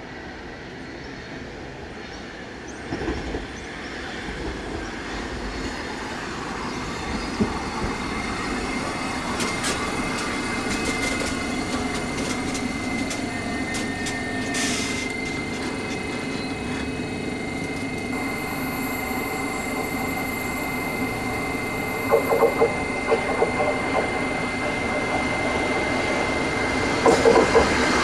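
London Underground S7 Stock electric trains running on the rails, the noise building steadily louder as a train draws near, with a steady high whine over it for the later two-thirds. Bursts of wheel clatter over rail joints come twice near the end.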